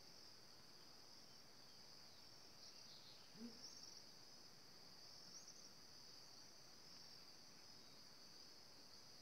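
Faint, steady high-pitched insect chorus trilling without a break, with a few brief faint chirps over it near the middle.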